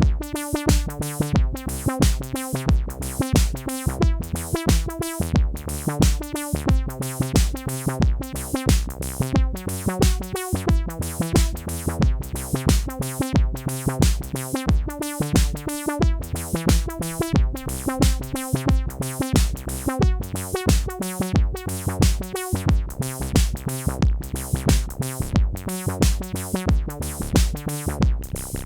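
Behringer DeepMind 12 analog polysynth playing a preset's notes over a Roland TR-8 drum-machine loop, with a steady kick about twice a second.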